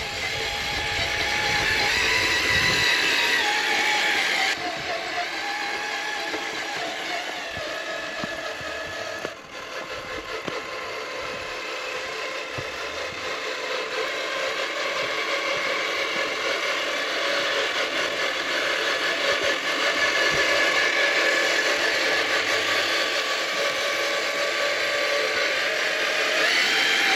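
Electric motor and gear drive of a 1/10-scale RC crawler whining as it drives, its pitch wavering up and down with the throttle.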